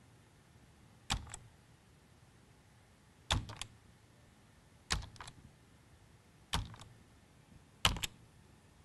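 Slow typing on a computer keyboard: five keystrokes about a second and a half apart, each a sharp click followed by one or two lighter ones as the key is pressed and released.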